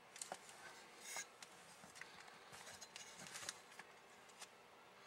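Faint handling noises: scattered light clicks and short scratches of small objects being moved, with a slightly louder scratch about a second in and a run of small clicks between about two and a half and three and a half seconds in.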